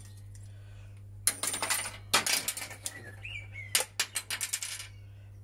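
Small plastic and metal parts from a stripped-down Vax handheld vacuum clicking and rattling as they are handled, in three quick bursts of light clicks: about a second in, around two seconds in, and near four seconds in.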